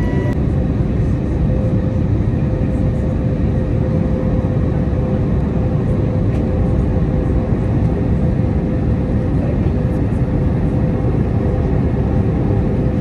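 Steady rumble of an airliner in flight, heard from inside the cabin: engine and airflow noise, with a faint steady tone joining in after about a second and a half.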